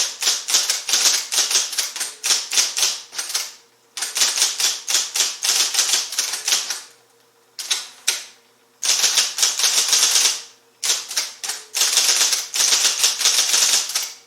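IBM Selectric I electric typewriter typing in fast runs of keystrokes, the typeball striking the paper several times a second, with a few short breaks between runs. A faint steady motor hum runs underneath.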